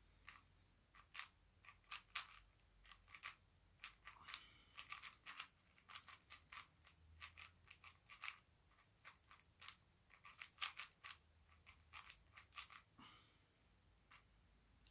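Plastic speedcube being turned fast by hand: irregular runs of sharp clicks and clacks as the layers snap round, with short pauses between runs and fewer clicks near the end.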